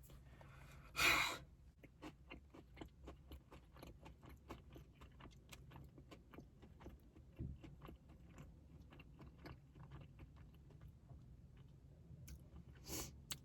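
A person chewing a fried chicken sandwich close to the microphone, with many small mouth clicks a few times a second. A short loud crackle about a second in.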